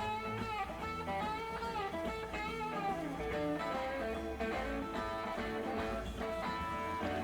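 Background music: a live rock band with electric guitar lines over a steady bass.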